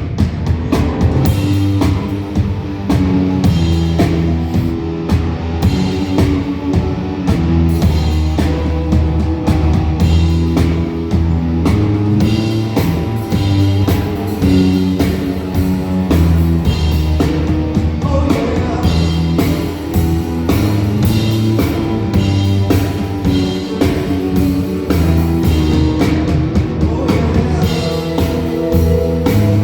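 Rock band playing a song at a sound check: electric guitar, bass and drum kit, with a steady drum beat over held bass notes.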